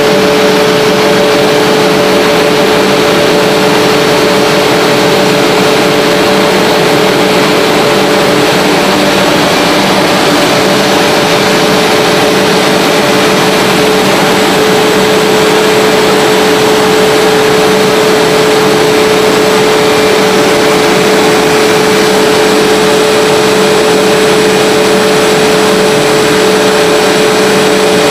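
HDPE pipe extrusion line machinery running: a steady, loud mechanical noise with a constant tone in it.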